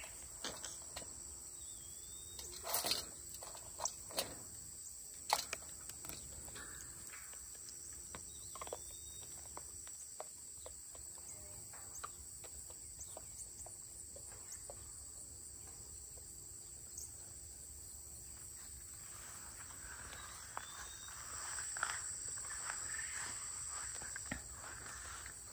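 Steady high-pitched insect chirring, with a few sharp knocks in the first several seconds and a soft rustling noise in the last few seconds.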